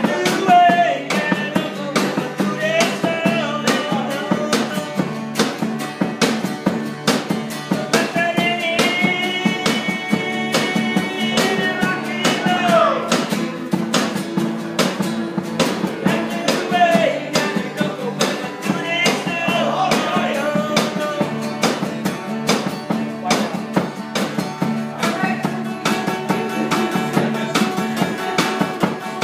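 Rock and roll music with guitar, a steady drum beat and a singing voice carrying the melody.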